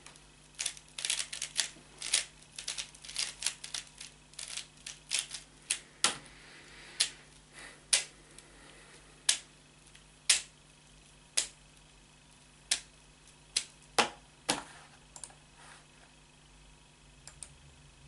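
3x3 Rubik's cube being turned in a blindfolded solve, its layers snapping round with sharp clicks: quick runs of clicks in the first few seconds, then single clicks about a second apart, thinning out to a few faint ones near the end.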